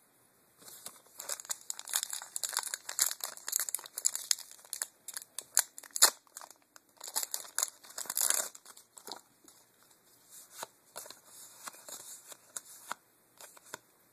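A Magic: The Gathering booster pack's foil wrapper being torn open and crinkled, a dense crackling that runs for the first eight seconds or so with one sharp crack near the middle. It then gives way to quieter, scattered rustling as the cards are pulled out and handled.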